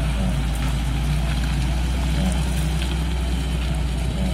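UAZ Patriot SUV driving slowly through a shallow muddy puddle, its engine running steadily at low revs with a steady low rumble.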